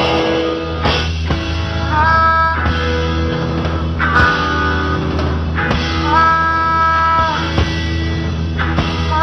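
Rock band playing live: electric guitar, bass and drums, with a blues harmonica blowing long held notes that slide up into pitch, three times.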